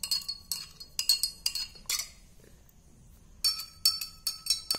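A metal spoon clinking against the inside of a glass tumbler while stirring sugar and salt into warm water to dissolve them. The clinks come quickly, about four a second, stop for a second or so midway, then start again.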